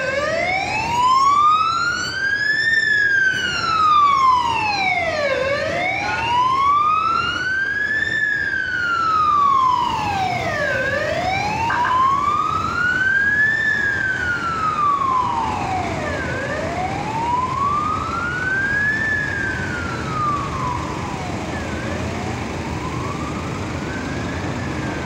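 Ambulance siren wailing, a slow rise and fall about every five seconds, growing fainter in the second half as the ambulances move away. Traffic noise runs underneath.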